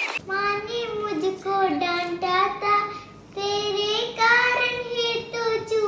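A young girl singing a melody in long held notes, with a brief pause about three seconds in.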